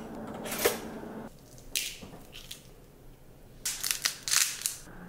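Bread slid into a pop-up toaster slot with a short scrape and click about half a second in, followed by a few brief crunchy scraping sounds, the busiest cluster near the end.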